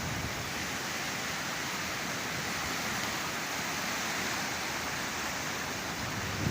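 Sea surf washing onto the shore: a steady rushing noise with no single wave crash standing out.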